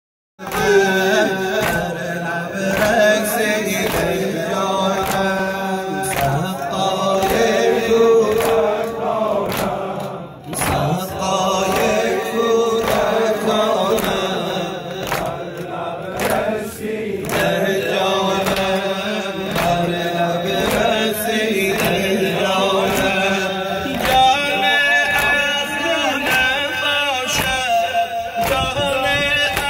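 A male eulogist chanting a Muharram lament (noha) through a microphone, with a crowd of men chanting along. Under the voices runs a steady beat of open-hand slaps, the mourners' rhythmic chest-beating (sineh-zani).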